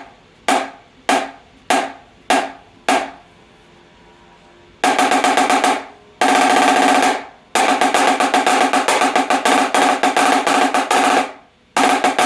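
Marching snare drum with its snares tightened ('choked'), struck about six times at even half-second spacing, then after a short pause played in several long stretches of fast rolls. The tight snares choke the sound and muddy the bottom head's pitch.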